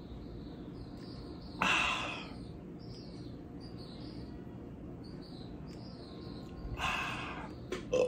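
A man gulping water from a plastic bottle, with two loud breathy exhales between swigs, and a burp just starting near the end. Faint high chirps repeat in the background throughout.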